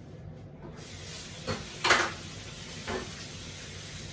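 Kitchen tap turned on, water running into the sink with a steady hiss, and three knocks of dishes or utensils against the sink, the loudest about two seconds in.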